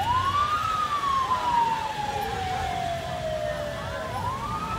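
Emergency vehicle siren wailing: a quick rise in pitch at the start, a long slow fall over about four seconds, then another rise near the end.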